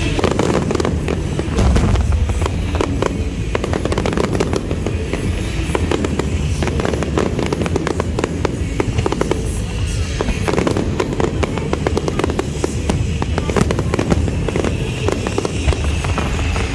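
Aerial fireworks going off in a continuous barrage: a dense run of sharp cracks and bangs over a steady low rumble.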